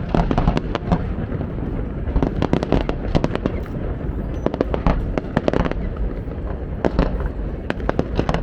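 Fireworks going off: a dense, irregular run of bangs and crackling pops in clusters over a steady low rumble.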